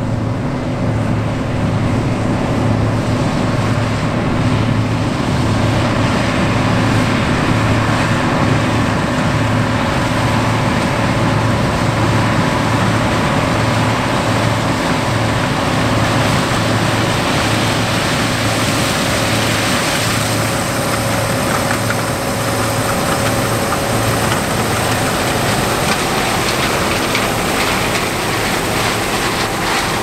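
John Deere 8820 Titan II combine harvesting corn: its turbocharged six-cylinder diesel runs steadily under load, with the rumble of the threshing machinery and corn head, a steady low hum.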